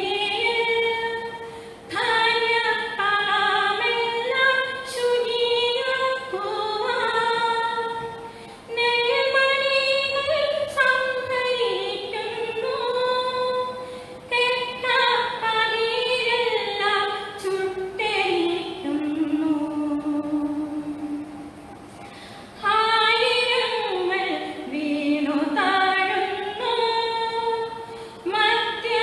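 A woman singing a devotional hymn solo into a microphone, without instruments, in slow melodic phrases. The singing breaks off briefly about two-thirds of the way through, then resumes.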